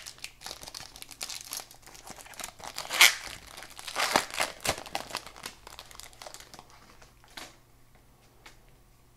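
Plastic wrapper of a pack of baseball cards crinkling as it is handled and opened and the cards are drawn out, with a sharp loud crackle about three seconds in; after about six seconds it dies down to a few faint ticks.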